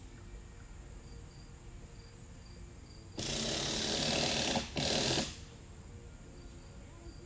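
Crickets and other insects chirping steadily, a high pulsing chirp about twice a second over a constant high buzz. About three seconds in, a loud rough scraping noise cuts in for about two seconds, broken by a short gap.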